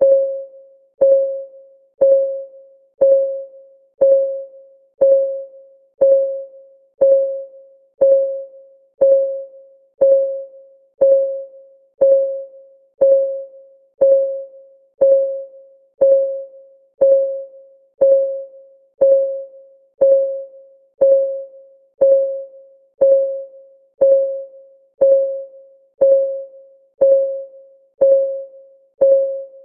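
Clock ticking at a steady one tick per second. Each tick is a short, sharp click with a clear mid pitch that dies away quickly, like a counting timer.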